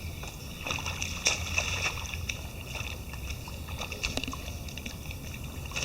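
Water sloshing and splashing in a rain puddle as children wade through it: scattered short splashes over a steady low rumble.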